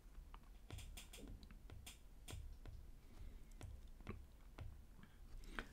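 Faint, irregular light clicks and taps of a stylus writing by hand on a tablet, with no speech.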